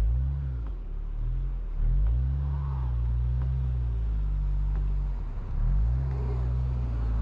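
A car stuck in snow revving its engine over and over, the pitch rising and falling every couple of seconds as the driver tries to pull free. Its wheels are spinning without grip.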